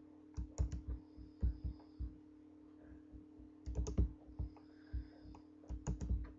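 Plastic Lego bricks clicking and knocking as they are handled and pressed together, in irregular clusters of sharp clicks and low thumps, over a steady low hum.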